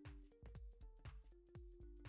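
Quiet electronic background music with a steady beat: low kick-drum hits that drop in pitch on each strike, under held synth notes.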